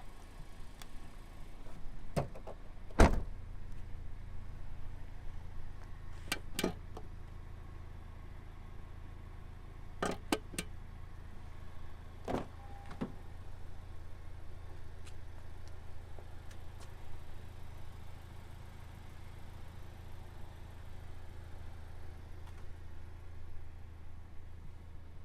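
Honda Civic Type R's turbocharged 2.0-litre four-cylinder engine idling steadily with a low hum, while several sharp clicks and knocks sound over it, the loudest about three seconds in.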